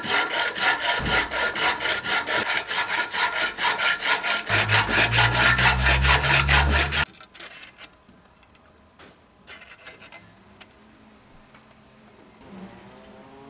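A hand tool worked back and forth on metal in quick, even rasping strokes, about four a second, stopping abruptly about seven seconds in. A low hum joins for the last couple of seconds of the strokes; after that there are only faint clicks and handling sounds.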